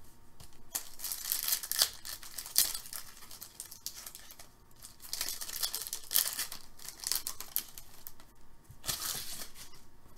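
Hockey card pack wrapper being torn open and crinkled by hand, in three spells of sharp crackling with quieter handling between.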